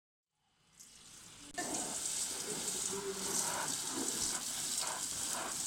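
Water from a garden hose spraying into an inflatable paddling pool: a steady spattering noise that sets in abruptly about a second and a half in, after a near-silent start.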